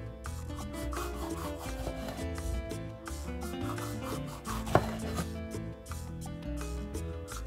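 Kitchen knife slicing a green bell pepper into thin rings on a bamboo cutting board, the blade knocking on the wood with the cuts and one sharper knock a little before five seconds in. Soft background music plays underneath.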